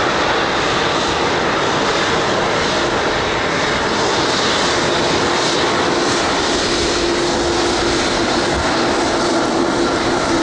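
Boeing 787-9 airliner taxiing on its General Electric GEnx turbofan engines: a steady jet rush with a faint thin whine. A low hum joins in about halfway through.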